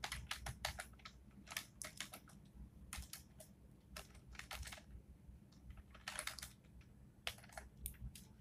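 Faint typing on a computer keyboard, in short runs of keystrokes with brief pauses between them.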